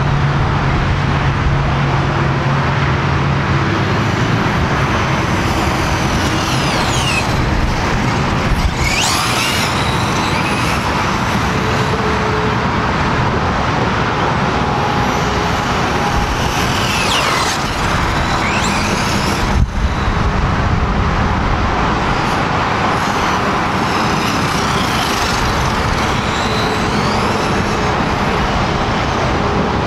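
Steady traffic noise from a highway beside the lot, with high whines from an electric Traxxas RC truck's motor rising and falling several times as it speeds up and slows down. A single sharp click about twenty seconds in.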